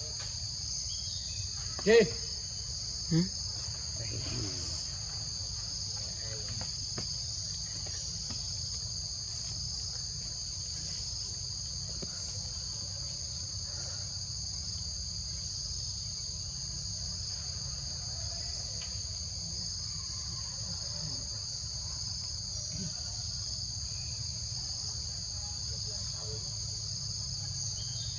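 A steady high-pitched insect chorus. Two short, loud calls about a second apart stand out near the start.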